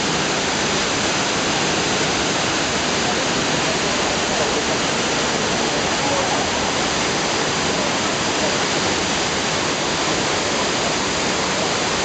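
Shiraito Falls, a wide curtain of many thin streams falling about 20 m down a rock face into a pool, making a steady, loud rush of water. Indistinct voices of people are faintly heard beneath it.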